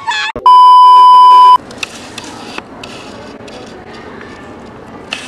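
A loud, steady electronic beep starts about half a second in, holds one pitch for about a second and cuts off abruptly. Quiet room tone with a few faint clicks and rustles follows.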